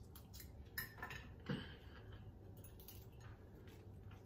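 Quiet eating at the table: a few faint clicks and taps of a metal spoon against the dishes.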